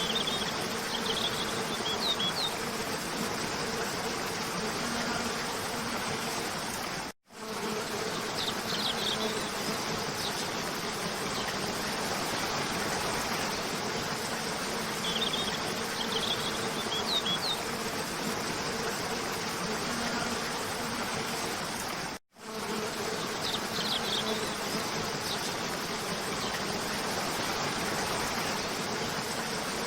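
Steady rush of a cascading waterfall under a faint steady buzz, with short clusters of high bird chirps coming back every seven seconds or so. The sound cuts out briefly twice, about fifteen seconds apart.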